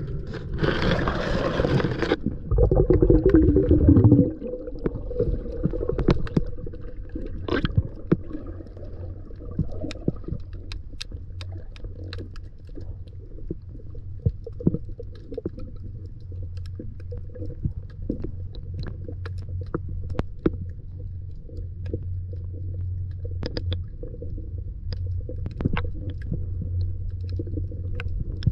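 Underwater sound heard through an action camera's waterproof housing: a steady, muffled low rumble with many scattered sharp clicks. A loud rushing noise fills the first two seconds.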